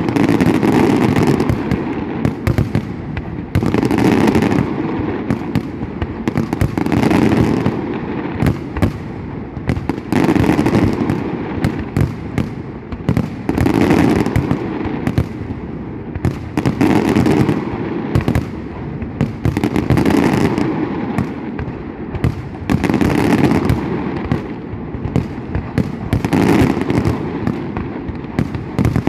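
Large fireworks display: a dense, unbroken barrage of bangs and crackling that swells in loudness about every three seconds.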